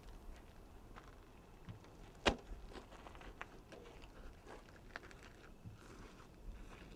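Faint footsteps on dirt and gravel outside the parked vehicle: scattered scuffs and crunches, with one sharper knock a little over two seconds in.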